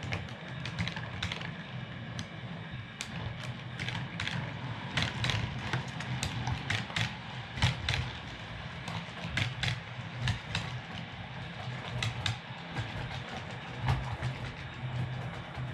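00 gauge model train (LNER Azuma) running on the layout: a steady low motor hum with many quick, irregular clicks of the wheels over the rail joints.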